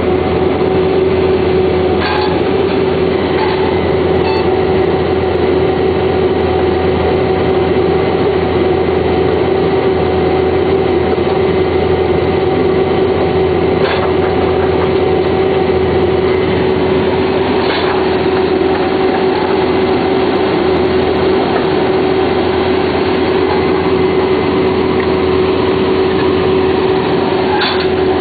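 Vermeer D24X40 Series 2 directional drill's diesel engine and hydraulics running steadily, with a constant tone over the engine note. A few sharp metallic clanks from the drill carriage and vise come through at irregular moments.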